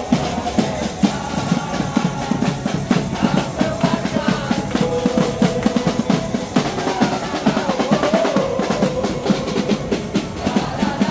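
A large group of supporters chanting in unison over fast, steady drumming.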